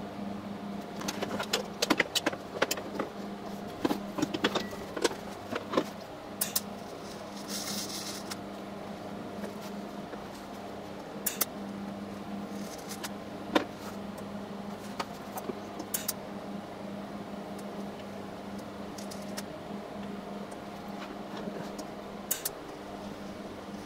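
Small metal parts and a TIG torch handled on a steel welding table: a run of sharp clicks and light metallic taps in the first few seconds, then scattered taps, over a steady low hum from the welding setup. A brief hiss comes about eight seconds in.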